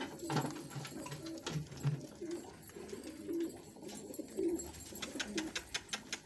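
Racing homing pigeons cooing in a series of low notes, with a quick run of clicks near the end.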